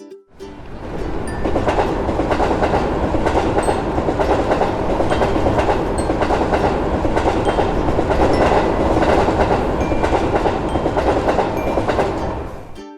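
Train passing: a steady rumble of wheels on the rails that swells up over about the first second and cuts off abruptly near the end.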